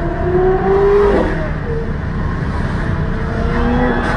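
Sports car engines revving in a slow-moving pack, heard from inside a car. The engine pitch climbs and breaks off a little over a second in, then climbs again toward the end, over a steady low engine rumble.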